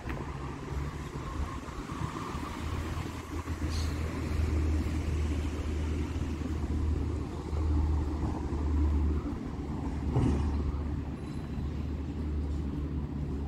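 Road traffic on a city street with a continuous low rumble, a vehicle passing in the first few seconds, and a couple of short sharp knocks about 4 and 10 seconds in.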